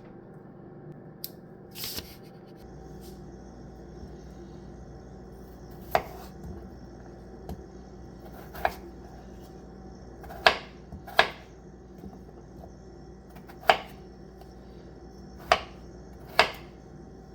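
Kitchen knife cutting on a cutting board: single sharp knocks at uneven intervals, about nine in all, over a steady low hum.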